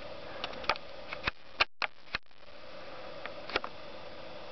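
A few sharp, irregularly spaced light clicks over a steady faint hum, with the sound cutting out briefly about two seconds in.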